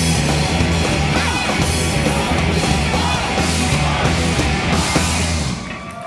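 Live rock band with electric guitars and drums playing the final bars of a song, with a heavy, driving low end; the music stops suddenly about five and a half seconds in.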